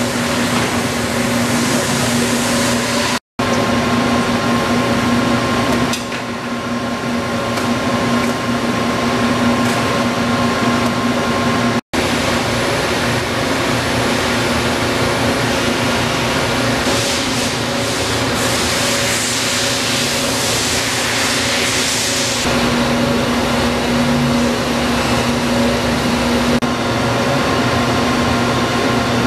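Stelron rotary assembly dial machine running: the electric drive motor, gear reducer and belt-driven cam index drive give a steady mechanical hum with a whine over it. The sound cuts out for an instant twice, and a hiss comes up for a few seconds after the middle.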